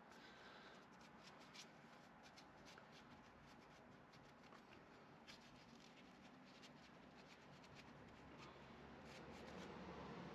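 Near silence, with faint scattered clicks and rubbing from hands handling a small part and its thin lead by the rear brake.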